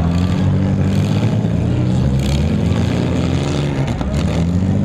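Several six-cylinder demolition derby cars revving hard and rising and falling in pitch as they push and ram each other. A few sharp bangs of the cars hitting come about two seconds and about four seconds in.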